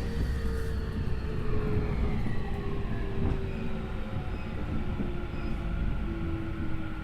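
Tokyu 5050 series commuter train running, heard from inside the car at its end: the low rumble of wheels on rail, with the whine of the Hitachi IGBT VVVF inverter and traction motors. The whine's tones slide slowly down in pitch, dropping a step about six seconds in, as the train slows.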